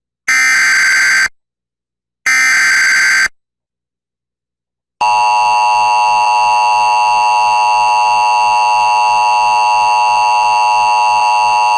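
Emergency Alert System tones: two one-second bursts of screeching digital header data a second apart, then, about five seconds in, the steady, loud two-tone attention signal begins and holds. The sequence signals the start of a new emergency alert.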